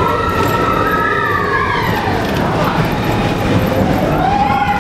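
Roller coaster train rumbling along its track, with riders' long screams sliding up and down in pitch over it, several voices overlapping.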